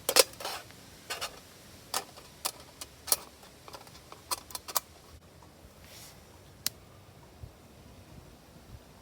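Irregular sharp clicks and light knocks, a dozen or so in the first five seconds, the loudest right at the start, then only two more over a quiet background.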